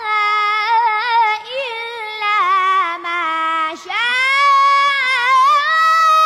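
A boy's high voice reciting the Quran in melodic tajweed, holding long ornamented notes with a wavering pitch. After a brief break about four seconds in, he rises into a higher held note.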